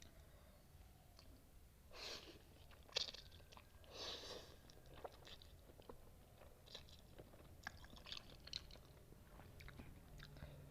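Close-miked eating of spicy noodles and kimchi: mouth chewing with a few louder crunchy bites about two to four seconds in, then quieter wet mouth clicks.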